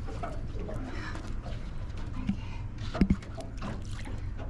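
Splashing and a couple of knocks, about three seconds in, as a large golden trevally is lowered over the side of an aluminium boat into the sea, over a steady low rumble.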